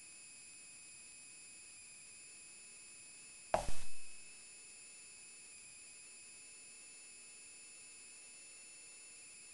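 A single thump about three and a half seconds in, over a faint, steady high-pitched whine.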